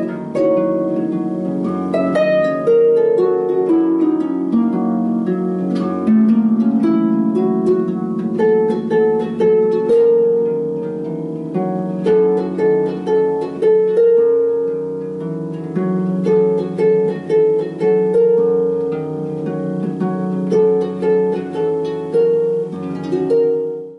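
Large floor harp being played: a plucked melody over lower accompanying notes, stopping near the end.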